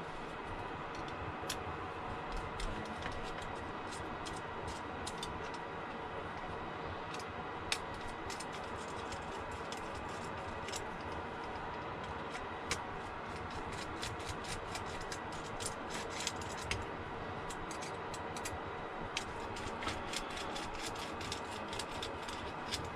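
Small hand tools and screws being handled at a workbench: many light, irregular clicks and ticks, more frequent in the second half, over a steady background hum.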